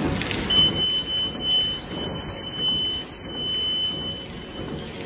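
Center-sealing bag making machine running, film feeding through its sealing and roller sections with a steady mechanical noise. A steady high-pitched beep-like tone sounds over it from about half a second in, lasting about three and a half seconds.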